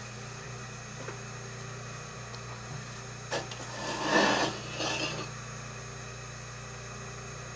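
Plaster bat being worked loose and slid off a potter's wheel head: a sharp knock, then a rough scraping rub lasting about a second and a half, over a steady low hum.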